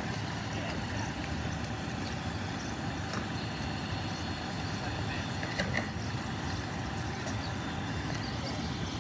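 Steady low rumble of an idling vehicle engine over street noise, with a few faint clicks.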